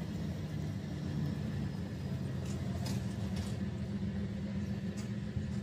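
A small engine running steadily with an even low hum.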